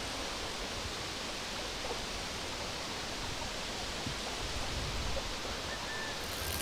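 Steady, even hiss of outdoor ambience with no distinct events; a low rumble comes in about four and a half seconds in.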